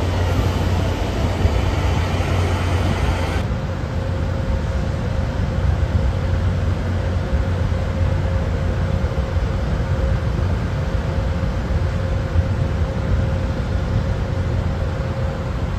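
Steady low rumble of a standing locomotive idling beside the platform. About three and a half seconds in the sound turns duller: a steady rail-yard rumble with a faint constant hum.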